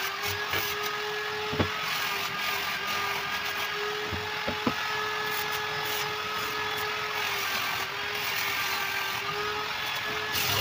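Hand-held grinder with a white wheel running at a steady pitch while it works the edge of a glass sheet, over a hiss; two short sharp knocks about one and a half and four and a half seconds in.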